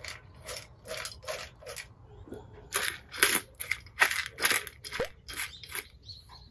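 Dry cat kibble crunching and scraping in a run of short, irregular crunches, about two or three a second, louder in the second half.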